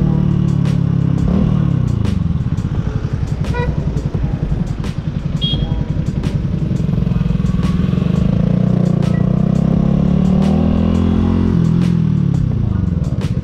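Yamaha YZF-R125's single-cylinder 125 cc four-stroke engine heard from the rider's seat. Its revs drop about a second in as the bike slows, stay low for a few seconds, climb as it pulls away, then drop again near the end.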